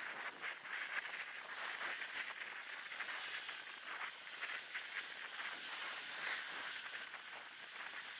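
Small waves breaking and washing up a shell-grit beach, mixed with wind buffeting the phone's microphone. Noise reduction and a high-pass filter have stripped out the low end, leaving a steady hiss.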